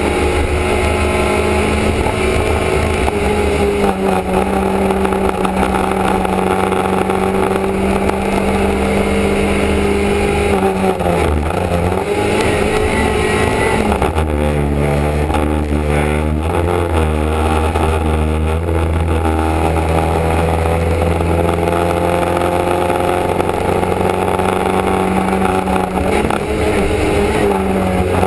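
Small competition car's engine pulling at high revs, heard from inside the stripped, roll-caged cabin as the car is driven hard. The revs hold steady, drop about ten seconds in, then rise and fall several times in quick succession before steadying again.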